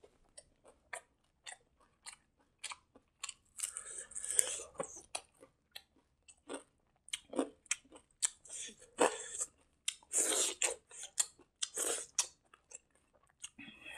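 Close-miked chewing of a mouthful of rice eaten by hand: many short wet clicks and smacks, with a few longer crunchy stretches of chewing around the middle and toward the end.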